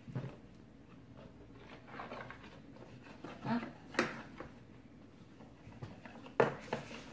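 A few sharp knocks and taps on a plastic high-chair tray as a toddler pats it and handles a spoon, the loudest knock near the end. A brief small vocal sound from the toddler comes a little past the middle.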